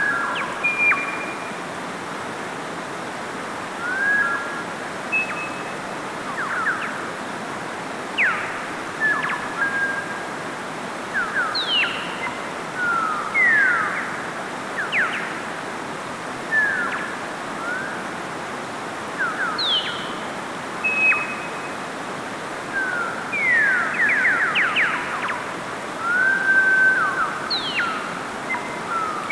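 Mountain stream rushing steadily over rocks, with birds chirping and whistling over it in short, quick calls scattered throughout.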